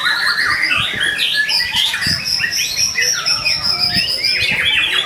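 White-rumped shama (murai batu) singing a continuous, varied song of whistles, fast trills and chattering notes. A long high whistle is held through the middle.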